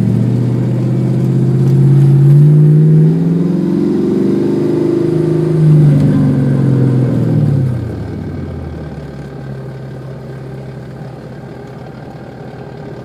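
1996 Mustang SVT Cobra's 4.6-litre DOHC V8, heard from inside the cabin, rising in revs twice and then falling to a lower, steady running note about eight seconds in.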